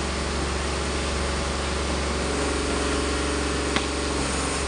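Steady low rumble and hiss of outdoor ambience. About three and a half seconds in comes a single short crack of a cricket bat striking a tennis ball.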